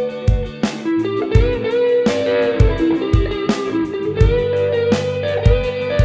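Electric guitar played through the Hotone Nano Legacy Siva Boogie mini amp with a Zoom G1Four multi-effects in front of it, heard direct from the amp's line out. It plays a sustained lead line with bent notes over regularly spaced low thumps.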